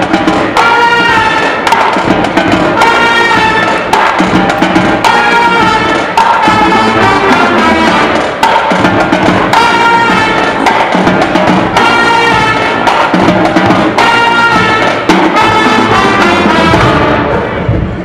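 Pep band of trumpets, saxophone and sousaphone playing a loud brass tune over a steady drum beat, fading out near the end.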